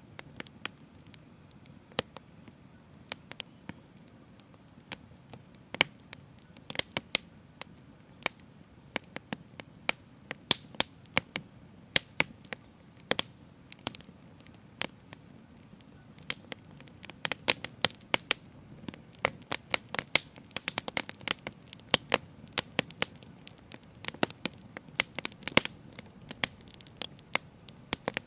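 Open fire crackling: sharp, irregular pops and snaps over a low, steady rush of flame, the pops coming thicker in the second half.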